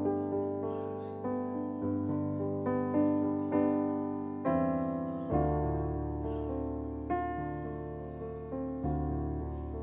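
Electric keyboard playing slow, sustained worship chords in a piano sound, each struck chord fading before the next. About five seconds in, the bass moves to a lower note.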